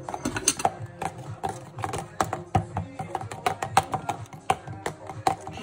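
Metal spoon clinking rapidly and unevenly against a plastic measuring jug as kefir is stirred, several clicks a second, over background music.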